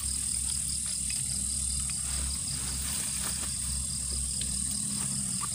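Night insects, crickets, calling steadily: a continuous high trill with a faster pulsing chirp above it, over a steady low rumble and a few faint clicks.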